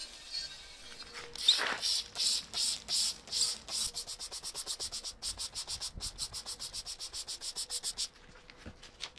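Hand sanding, a rapid back-and-forth scratching of abrasive on a part. It starts with a few slower strokes, speeds up to about five strokes a second, and stops shortly before the end.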